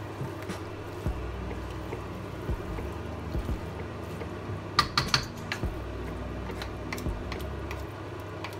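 Wooden spoon stirring beef and grated carrots in a metal pressure cooker pot, scraping and clicking against the pot, with a few sharper knocks about five seconds in.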